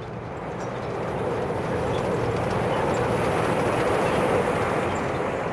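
A steady rushing noise that swells for about four seconds and begins to fade near the end.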